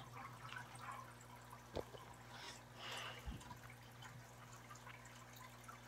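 Near-quiet room tone with a steady low hum, broken by a few faint clicks and a soft rustle about two and a half seconds in.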